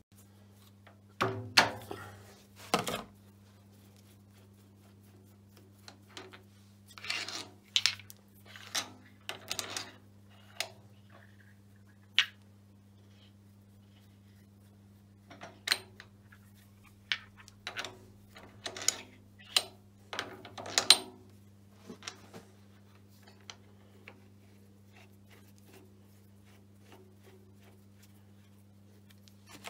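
Steel spacer collars and support bushing on a Schaublin SV52 horizontal milling arbor clinking and knocking as they are slid off and rearranged by hand, in scattered clusters of sharp metal clicks over a steady low hum.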